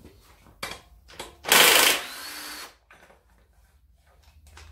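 A cordless power tool runs in one short loud burst about a second and a half in, then more quietly for about half a second, undoing the 15 mm bolt that holds the serpentine belt tensioner; a few light clicks of metal tools come before it.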